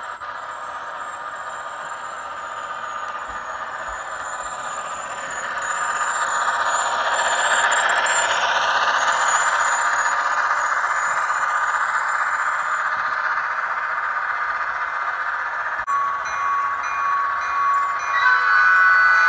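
Model diesel locomotive's ESU LokSound V5 sound decoder playing diesel engine sound through its small on-board speaker, over the hum of the model running on the track; it grows louder as the locomotive passes close about halfway. Near the end, after a cut, the decoder plays steady ringing tones.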